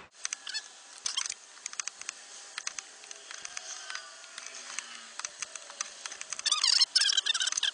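A socket ratchet with a 12 mm socket clicking as it loosens the shifter assembly's bolts. Scattered clicks give way to a fast run of clicking, with squeaky metallic ringing, from about six and a half seconds in.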